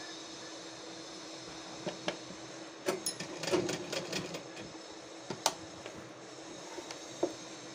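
Sewing machine sewing long basting stitches along a neckline facing: a steady hum, with a cluster of sharp clicks and knocks from about two to five and a half seconds in and one more near the end.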